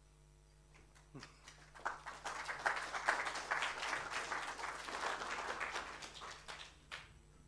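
Audience applause: many hands clapping together. It starts about two seconds in, swells, and dies away about five seconds later.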